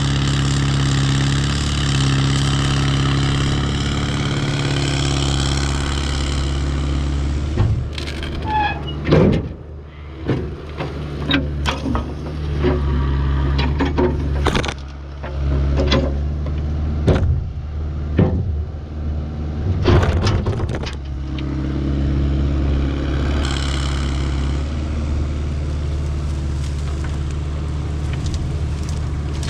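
Excavator's diesel engine running steadily; from about 8 s to 21 s a string of sharp cracks and knocks breaks in over it, then the engine runs on steadily.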